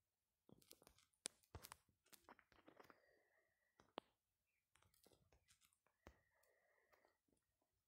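Near silence with faint scattered clicks and short rustles, the sound of a phone being handled and its touchscreen tapped.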